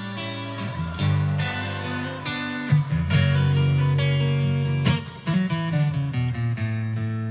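Acoustic guitar music with strummed chords, played from a CD through a Philips micro hi-fi system and its bookshelf speakers.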